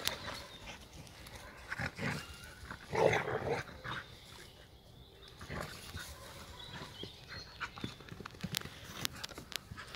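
Two German hunting terriers (Jagdterrier) play-fighting, with bursts of growling about two and three seconds in, the loudest near three seconds. A few short sharp clicks come near the end.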